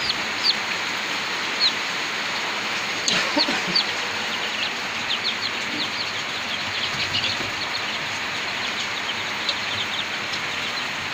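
A brooder full of week-old Kaveri chicks peeping: a constant scatter of short, high peeps from many birds over a steady hiss.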